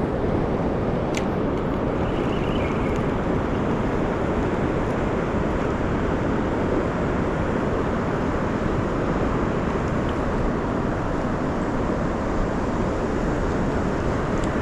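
Wind buffeting the microphone: a steady, loud, low noise with no break, on a gusty river.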